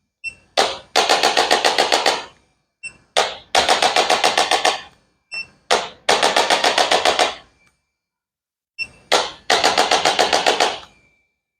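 Rapid percussive tapping on the back during a chiropractic treatment. There are four runs of about ten even taps a second, each lasting one to two seconds and each led by a single sharp click.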